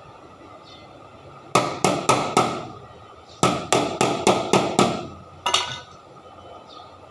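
Hammer blows during a vehicle repair: four strikes about a second and a half in, then a quicker run of six, and one last blow.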